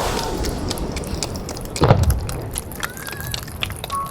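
Fireworks: one deep boom of a shell bursting about two seconds in, among scattered crackling pops as earlier bursts die away.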